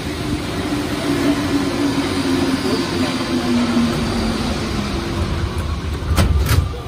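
Rubber-tyred MP89CA metro train braking to a stop, with a rumble and a whine from its traction drive that falls slowly in pitch as it slows. Two heavy knocks come near the end.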